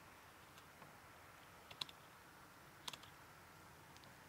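Near silence with a few faint clicks, the two clearest about two and three seconds in, from a knife filleting meat off a rabbit's backbone on a wooden board.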